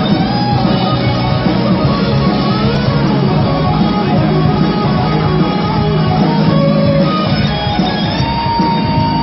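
Rock band playing live on electric guitars, bass and drum kit, an instrumental passage without singing, with a long held guitar note near the end.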